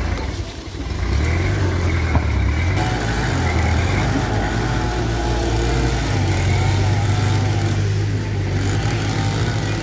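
Diesel engine of a Mitsubishi BD2F bulldozer working, its pitch rising and falling as it takes and sheds load while pushing soil.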